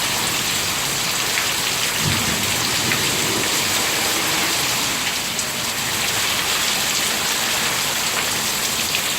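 Heavy rain falling steadily in a thunderstorm, a dense even hiss. About two seconds in, a low rumble of thunder swells and fades over a couple of seconds.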